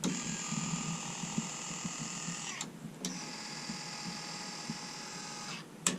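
Electric exhaust cutout actuator motor whining as it runs for about two and a half seconds, stopping briefly, then running again for about as long. This is the louder, 'ka-chunky' one of the van's two cutouts.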